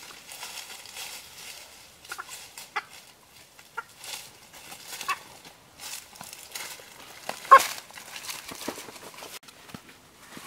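A caught chicken, carried by hand, giving several short squawks and clucks, the loudest about seven and a half seconds in, over rustling and crackling of dry leaf litter underfoot.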